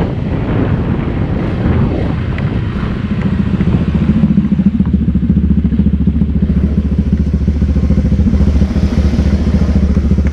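Motorcycle engine running steadily, getting louder about four seconds in and holding there.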